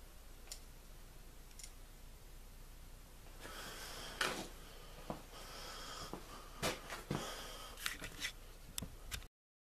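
Faint breathing close to the microphone with a few light clicks scattered through, in a small room; the sound cuts off abruptly near the end.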